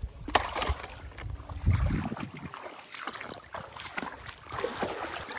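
Handling noise: a sharp plastic click as a toy goes into a plastic basket, then a run of small crackles and rustles, with a brief low rumble of wind on the microphone about two seconds in.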